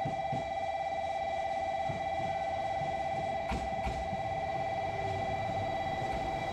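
An electronic ringing signal: a steady tone with a rapid trill and thin higher overtones, cutting in abruptly. Two faint clicks come about halfway through.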